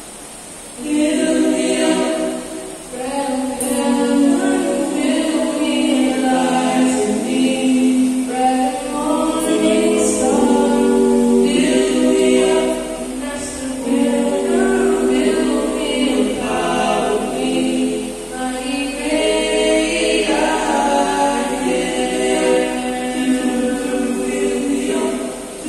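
Small male a cappella group singing a gospel song in close harmony into microphones, amplified through a PA, starting about a second in.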